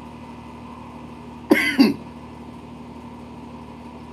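A man's short vocal sound, a throat-clearing-like noise in two quick parts about a second and a half in, over a faint steady hum.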